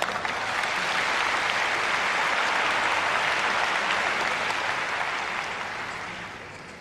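Audience applauding. The applause swells over the first second or two, holds, then dies away near the end.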